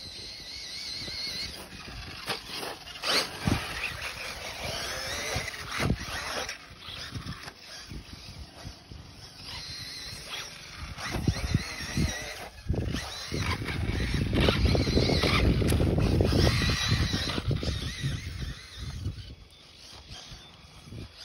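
Radio-controlled off-road buggy's motor whining, its pitch wavering up and down as the throttle changes, with a few short knocks. Past the middle a loud low rumble covers it for several seconds.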